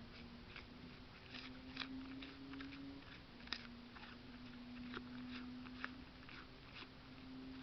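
Roe deer doe chewing and crunching apple chunks and seed close to the microphone: irregular crisp crunches and clicks, a few sharper ones standing out.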